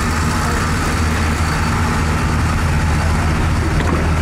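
A car engine idling steadily, heard as a low, even hum.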